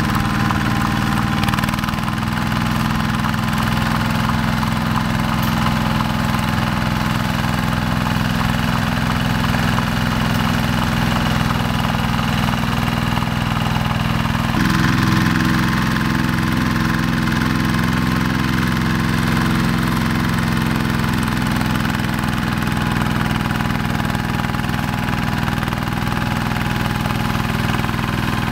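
Single-cylinder diesel engine of a two-wheel hand tractor running steadily under load as it tills rice-field soil. The engine note changes about halfway through.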